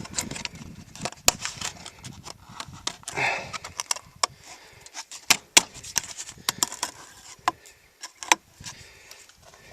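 A scattered run of sharp clicks, clinks and knocks of tools and parts being handled, with a short rustling scrape about three seconds in.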